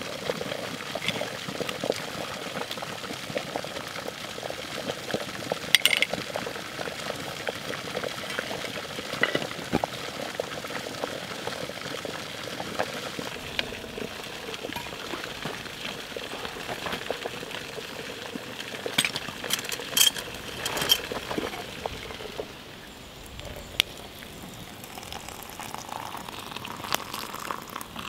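A wood-fired Kelly kettle boiling, with frankfurters sizzling in a pan on the hobo stove on top of it. A few sharp metal clinks from mugs and lids come through now and then.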